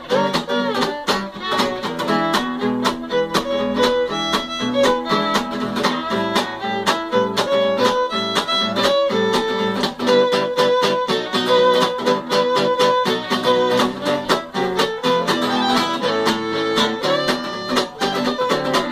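Fiddle playing a swing melody over a 1949 Gibson L-7 archtop guitar strumming short, percussive chunk chords in a steady beat.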